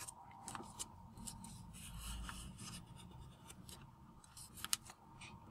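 Square sheet of origami paper being pressed and creased by fingertips on a tabletop: faint rubbing and crinkling, with a sharper paper tick near the end.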